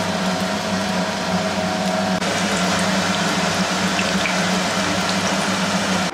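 Battered vegetable fritters deep-frying in hot oil in an iron kadai, a steady sizzle with a low steady hum underneath. The sizzle shifts slightly about two seconds in.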